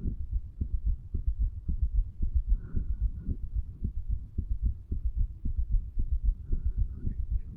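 A 35-year-old man's heartbeat heard through the chest over the tricuspid valve area, placed low to pick up more of the heart muscle: a steady run of low, repeating thumps of the beating heart.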